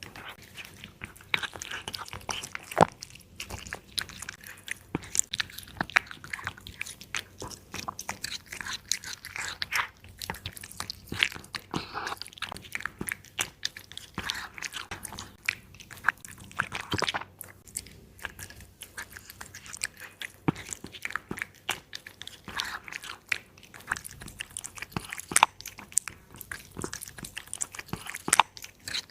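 A cat chewing and biting meat, with dense, irregular crunching clicks.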